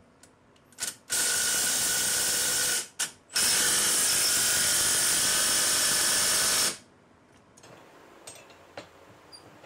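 Cordless power ratchet running in two steady bursts, the second longer and cutting off sharply, as it backs out the bolts holding the jet pump. Light clicks of the socket being set on come before each run.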